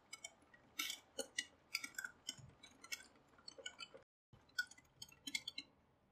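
Wire whisk beating a thin gram flour and semolina batter in a bowl: light, irregular clicks and taps of the wires against the bowl, with a short break about four seconds in.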